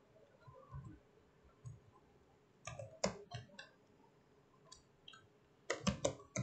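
Computer keyboard keystrokes clicking as text is typed: a few keys around three seconds in, then a quick run of them near the end.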